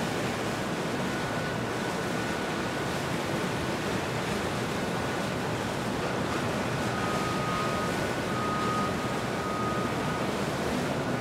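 Steady wash of wind and open-water noise. A few faint, short high tones sound in the second half.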